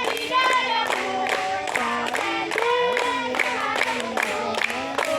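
Music: a song with several voices singing over a quick, steady beat.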